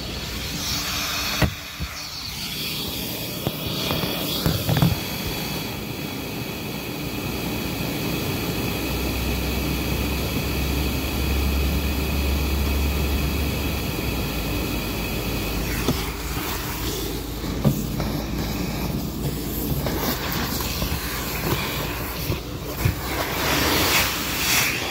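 Vacuum cleaner running right at the microphone while its nozzle works over car upholstery: a dense rushing with a steady high motor whine that drops out about two-thirds of the way through, and scattered knocks of the nozzle against the interior.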